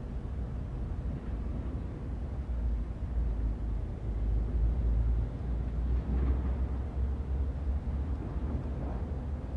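Outdoor background noise: a low, uneven rumble with a faint hiss above it and no distinct events.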